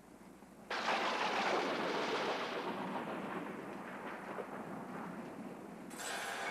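A sudden loud rush of noise under a second in, fading slowly over about five seconds, like a thunder effect; near the end, chimes begin to ring.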